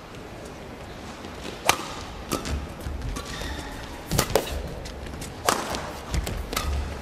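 Badminton rally: rackets striking the shuttlecock with sharp cracks about every second, six or so hits back and forth, with low thuds of the players' footwork on the court between them.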